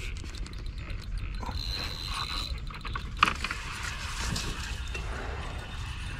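Daiwa N'Zon feeder spinning reel being cranked against a strong fish, with rapid clicking and whirring from the reel's mechanism and a sharp click about three seconds in.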